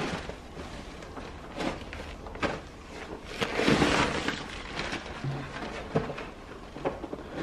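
Rustling and scraping of packaging as a computer monitor is lifted out of its foam inserts and protective sheet, with scattered light knocks and a louder rustle about three and a half seconds in.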